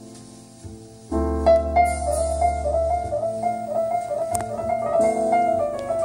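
Recorded music playing through Magnepan MMG planar panel speakers in a living room: an instrumental break with piano, where a fading chord gives way about a second in to a loud new chord and a quick run of repeated notes.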